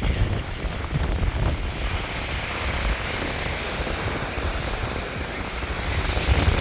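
Strong wind buffeting the microphone with an uneven low rumble, over the steady rush of ocean surf.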